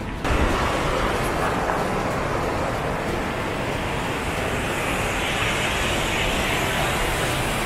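A steady rushing noise that starts suddenly just after the beginning and holds even throughout.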